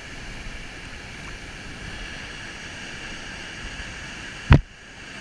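Steady rushing of a waterfall, falling water heard as an even hiss. There is a single loud thump about four and a half seconds in, and the rush is briefly muffled just after it.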